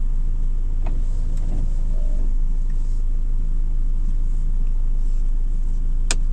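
Citroën Jumper van's engine running steadily at low speed, heard from inside the cab, with a sharp click about six seconds in.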